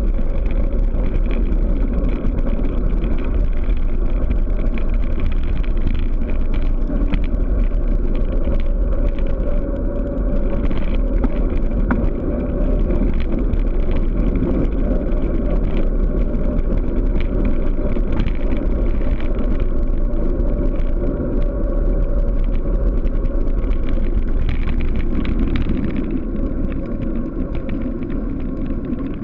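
Wind rumbling heavily over a camera microphone on a bicycle descending at speed, mixed with tyre noise on the road. It is steady and low, and turns a little quieter near the end.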